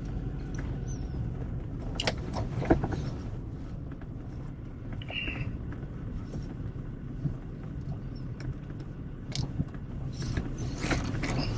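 Car driving: a steady low rumble of engine and road noise, with a few faint light clicks.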